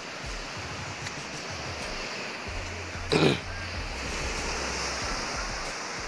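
Surf washing on a shallow sandy beach as a steady rush of noise, with a brief louder rush about three seconds in.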